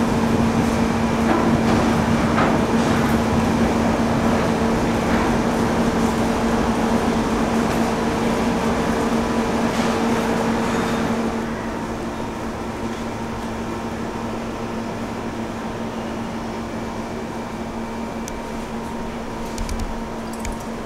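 Subway station ambience: a steady low mechanical hum with a constant tone. About eleven seconds in it drops to a quieter hum with a thin higher tone.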